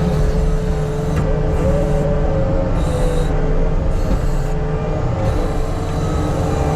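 Diesel engine of earthmoving equipment running steadily, with a tone that wavers up and down in pitch over the engine's low rumble.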